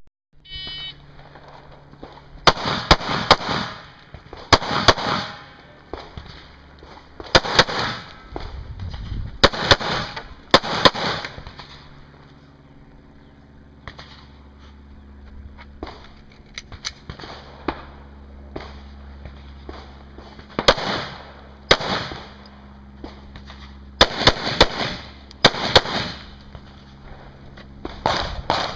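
Smith & Wesson M&P pistol fired in quick pairs of shots about half a second apart, each shot cracking and echoing. A short electronic beep near the start is the shot timer's start signal. After a string of pairs there is a pause of several seconds with small clicks and handling noise, then the pairs start again.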